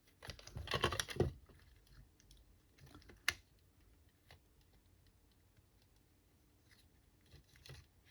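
Small clicks and rattles of a cordless screwdriver's plastic casing and parts being handled and fitted together: a dense run of clicks about a second in, one sharp click a little after three seconds, and a few more clicks near the end.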